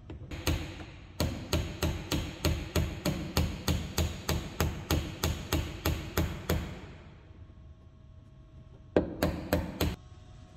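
Claw hammer striking a wooden block held against a hardwood strip, tapping the strip down into place. There is a rapid, even run of about twenty blows at roughly three to four a second, a pause, then four more blows near the end.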